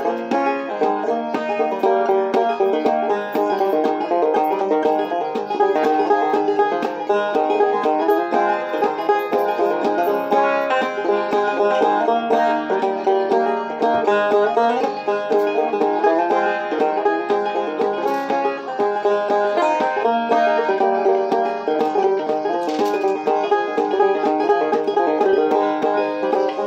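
Morgan Monroe open-back five-string banjo played solo, a continuous run of plucked notes and chords.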